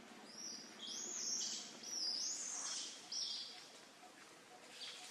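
A bird singing: a run of about five high, whistled phrases in the first three and a half seconds, then fainter background.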